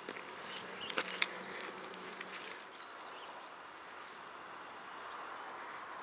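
A flying insect buzzing past with a low steady hum for about a second and a half, over a steady hiss with short high chirps repeating about once a second. A couple of sharp clicks come about a second in.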